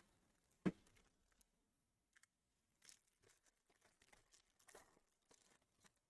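Near silence with a few faint handling sounds of trading cards and foil pack wrappers. There is one short crinkle just under a second in, and softer ones around three and five seconds in.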